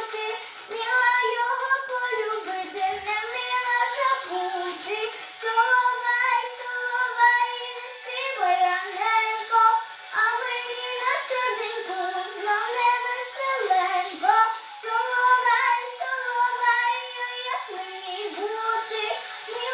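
A young girl singing a melody, holding notes and sliding between pitches, with short pauses between phrases.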